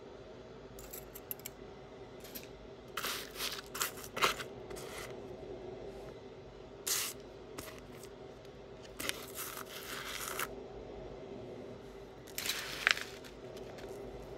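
Jewelry being handled by hand: several short bursts of rustling and scraping with a couple of sharp clicks as pieces are picked up and set down, over a faint steady hum.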